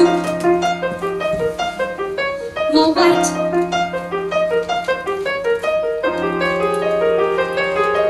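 Piano playing quick, repeating figures of short notes over a low note that is struck again about every three seconds.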